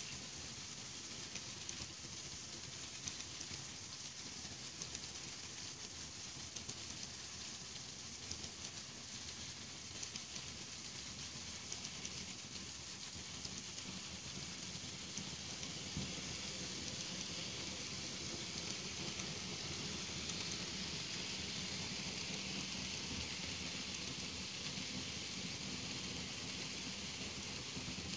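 N scale model train rolling past on its track: a steady, rain-like rushing clatter of many small metal wheels on the rails, with fine clicks, getting a little louder about halfway through.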